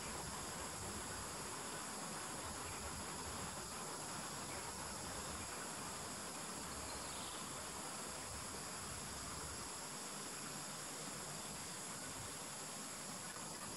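Steady, high-pitched chorus of night insects, a continuous trill that holds level throughout, over low hiss.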